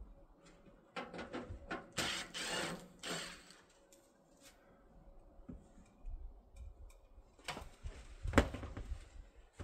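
Irregular handling noises: a run of clicks and knocks, a scraping rustle about two seconds in, and a sharp knock near the end.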